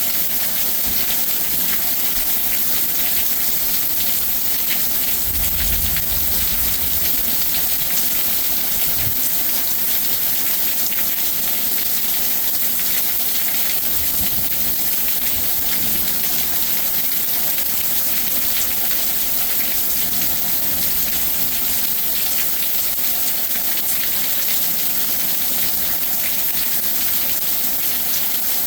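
Heavy rain pouring down in a steady, loud hiss, with a brief low rumble about five seconds in and another near the middle.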